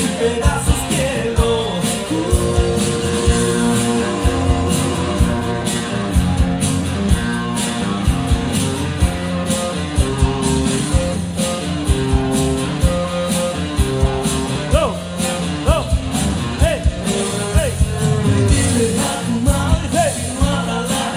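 Loud recorded dance music with a steady beat and a sung vocal, played over a DJ's sound system.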